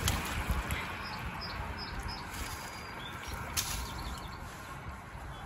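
A small bird gives a quick run of four short high chirps about a second in, then a few fainter notes, over a low steady rumble, with light water sloshing and a sharp click from hands working in shallow water.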